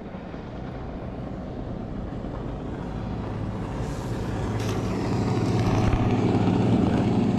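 Motorboat engine running at speed, a steady hum that grows louder as the boat approaches.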